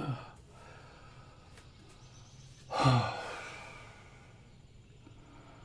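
A man sighing twice: a short sigh at the start and a louder, longer one about three seconds in, each falling in pitch.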